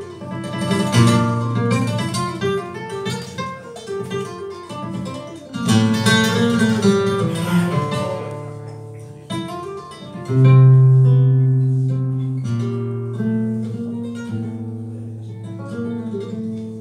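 Solo flamenco guitar playing malagueñas: fast plucked runs and strummed chords, then from about ten seconds in slower single notes over a loud, ringing low bass note.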